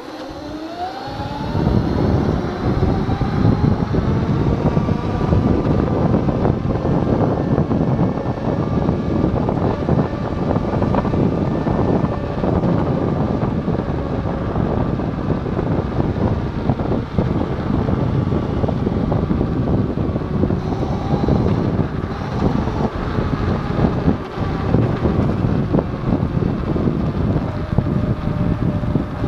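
Kaabo Wolf Warrior X Pro electric scooter's motors whining as it pulls away, the whine rising in pitch over the first two seconds and then holding steady at speed. Heavy wind noise on the microphone and road rumble run under it.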